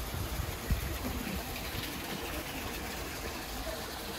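Steady rush of water pouring into a fishing pond, with a single soft knock just under a second in.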